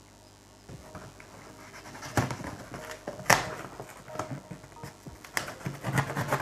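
Knife cutting through the packing tape on a cardboard box: a few sharp scratchy rasps, the loudest about three seconds in, with cardboard rustling and scraping between them and more of it near the end.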